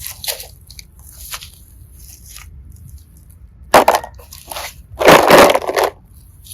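Slime being handled and squeezed, giving soft sticky pops and crackles, then a sharp crunchy squelch about four seconds in and a longer loud squelch about five seconds in.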